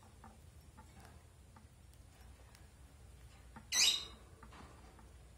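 Rosy-faced lovebird eating seeds from a glass bowl: faint small clicks and crunches of its beak, with one brief, loud, sharp rasp nearly four seconds in.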